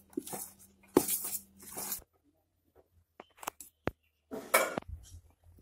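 Spoon stirring gram-flour dhokla batter in a steel bowl right after Eno has been added, with scrapes and sharp clicks against the metal. The sound breaks off suddenly about two seconds in, then returns as a few clicks and a short scrape near the end.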